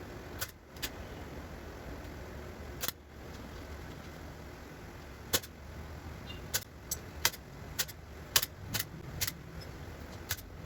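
A series of sharp, short clicks at uneven spacing: two early on, one about three seconds in, then about nine more packed between the middle and the end, over a low steady background hum.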